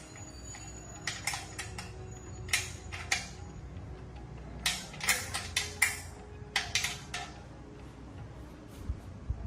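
Metal tools and parts clinking and clanking as they are handled, in irregular clusters of sharp knocks over a low steady hum.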